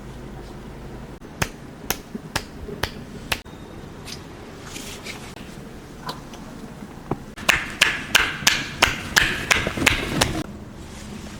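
Sharp hand strikes on the head and shoulders during a hair-wash massage: a few spaced taps, then a quick run of about a dozen at about four a second near the end.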